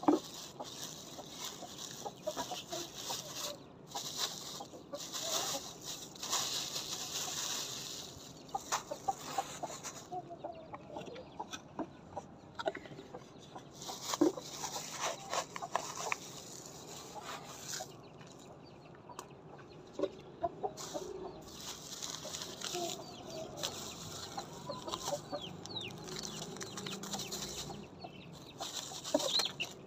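Plastic bags crinkling and rustling in bursts as feed bags are opened and handled, with a few sharp clicks. Hens cluck now and then.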